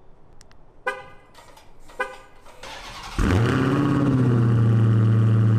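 Two short horn chirps from a Dodge Charger SRT Hellcat as it is remote-started. About three seconds in, its supercharged 6.2-litre HEMI V8 cranks and fires on a cold start, flaring up briefly before settling into a loud, steady high idle.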